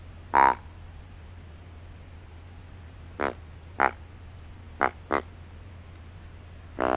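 Deer grunt tube call blown by mouth: five short grunts spaced out over several seconds, then a longer, louder grunt that starts near the end.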